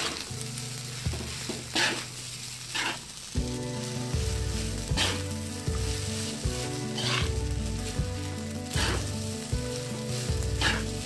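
Fried rice sizzling in an aluminium wok as a spatula stirs and presses the clumped rice apart, with a scrape of the spatula against the pan every second or two.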